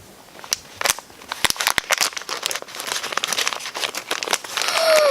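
Crinkling and tearing of a toy's plastic packaging as it is opened by hand. Near the end, a voice calls out, sliding down in pitch.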